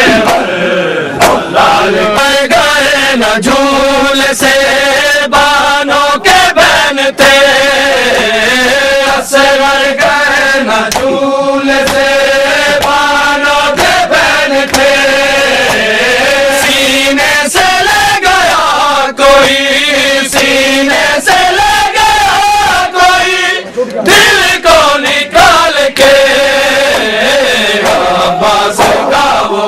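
Male voices chanting a noha, a Shia Muharram mourning lament, in long held lines that glide in pitch, with a short break about 24 seconds in.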